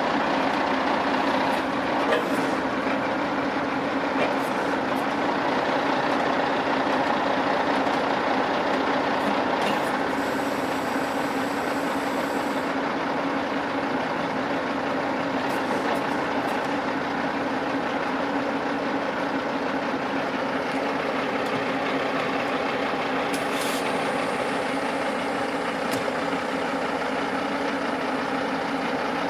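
Peterbilt's diesel engine idling steadily, with a few sharp metal clanks now and then as the detachable gooseneck is worked.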